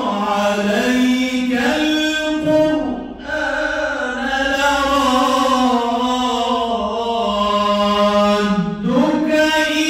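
A man reciting the Quran in the melodic mujawwad style, holding long ornamented notes. There is a short break about three seconds in, and the line falls in pitch and rises again near the end.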